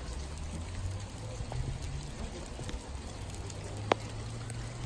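Hail and rain falling on a road and parked cars: scattered sharp ticks of hailstones striking, one louder about four seconds in, over a low steady rumble.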